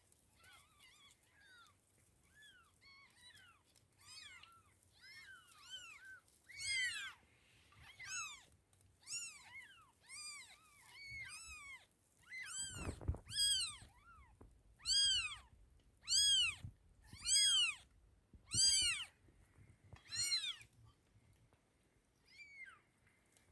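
Day-old kittens mewing: many short, high-pitched cries, several overlapping at first, then louder and coming about once a second from about halfway through. A low bump sounds under one of the cries near the middle.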